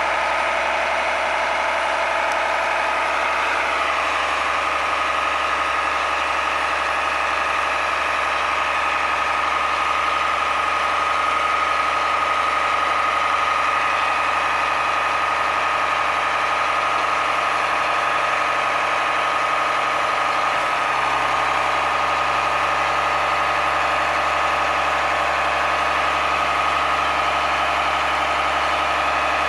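Mack LEU refuse truck's engine idling steadily, with a steady whine over it that settles in about three seconds in.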